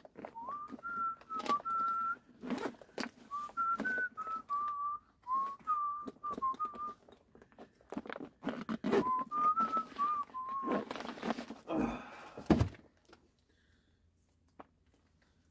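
A man whistling a wandering tune in three stretches, with scattered clicks and knocks of handling, and a louder thump about twelve seconds in.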